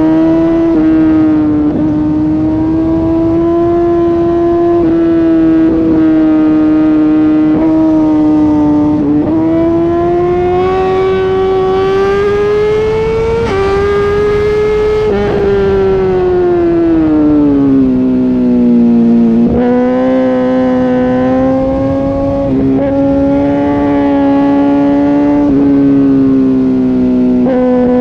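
Sport motorcycle's inline-four engine held at high revs at speed, its pitch climbing over several seconds, easing back down about halfway through, then holding steady, with a few brief dips from throttle changes. Heavy wind rush over the helmet microphone runs underneath.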